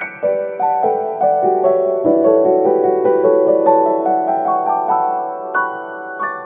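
Background piano music: a flowing run of struck notes over held chords.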